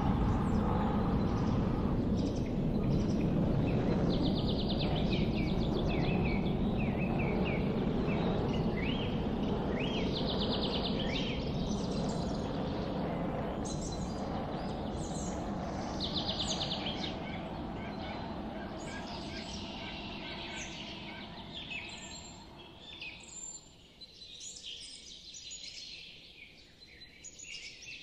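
Birds chirping, with a short rapid trill recurring every few seconds, over a low rumbling noise that fades away over about twenty seconds, leaving the birds alone near the end.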